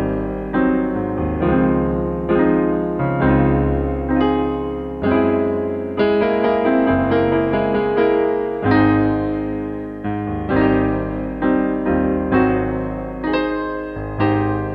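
Background music: slow piano playing, with a new note or chord struck about every second and each one dying away.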